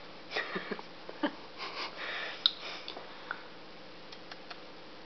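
A baby eating spoon-fed rice cereal: short breathy sniffs and small mouth sounds, with a few light clicks and ticks.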